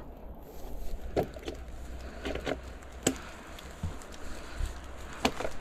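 Mountain bike rolling down a rocky trail: tyres crunching over stones under a steady low rumble, with scattered sharp knocks and clatters from the bike hitting rock steps.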